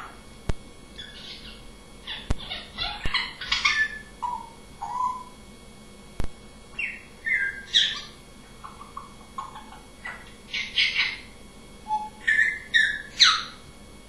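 African grey parrot calling in bursts of short whistles and chirps, several sliding in pitch, with a few sharp clicks between the bursts.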